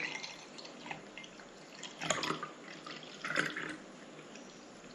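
Necto red soda poured from a plastic bottle into a tall glass, the liquid splashing into the glass in a few short spells, near the start, about two seconds in and again about a second later.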